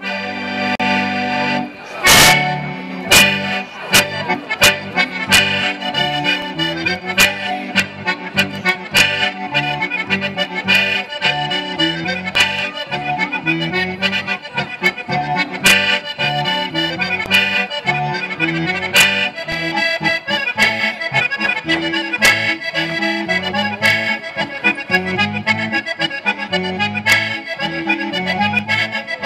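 Accordion playing a lively traditional Sardinian folk dance tune, with frequent sharp knocks over the music, the strongest about two seconds in.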